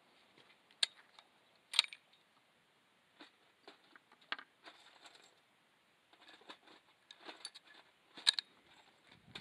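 Sharp metallic clicks and light rattles from a bolt-action hunting rifle being handled and reloaded between shots, with louder clicks about two seconds in and near the end.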